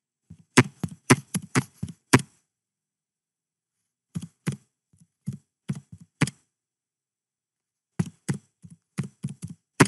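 Computer keyboard typing: three short runs of about eight sharp keystrokes each, with pauses of about two seconds between them.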